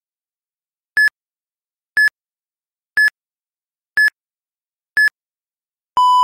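Electronic interval-timer beeps: five short, high beeps one second apart counting down, then a longer, lower beep starting near the end, the cue to switch between the one-minute run and the one-minute recovery.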